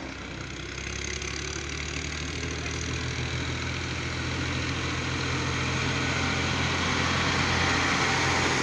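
Tractor engine running steadily with a low hum, growing gradually louder as it approaches, likely hauling loaded sugarcane trolleys.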